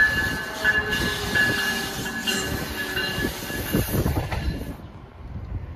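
Amtrak Northeast Regional train, an ACS-64 electric locomotive and Amfleet coaches, passing close by: the rumble and clatter of its wheels on the rails, with a high squeal from the wheels in the first few seconds. The sound cuts off abruptly about five seconds in.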